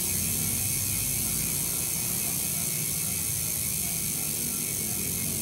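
Speedone Armorer 8-pawl rear hub freewheeling on a bike, its pawls clicking over the ratchet so fast they merge into a steady, loud, even buzz.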